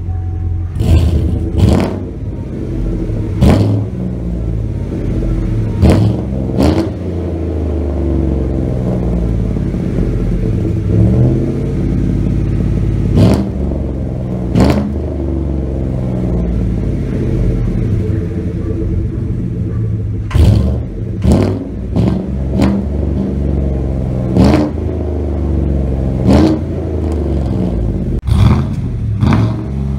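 A 5.3 L Gen V small-block Chevy V8 (L83), running with its catalytic converters and muffler removed, idles and is blipped with about fifteen short sharp revs. It is being revved after the intake valve cleaner has soaked, to burn off the loosened carbon.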